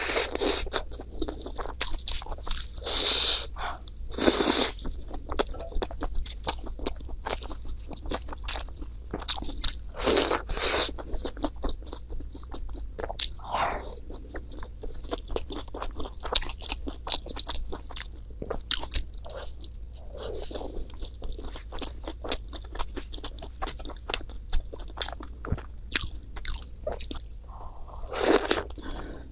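Close-up eating sounds of a person chewing and biting food, with many small wet mouth clicks. Several louder crunchy bites come every few seconds, over a steady low hum.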